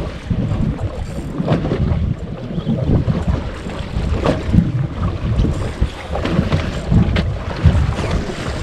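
Wind buffeting the microphone on a boat at sea: an uneven, gusting rumble, with a few short knocks.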